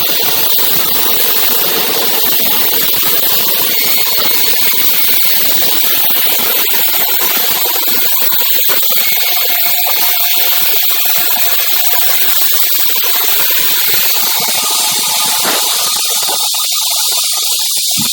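Steady, loud hissing machine noise, strongest in the high range with little bass; the lower part drops away briefly near the end.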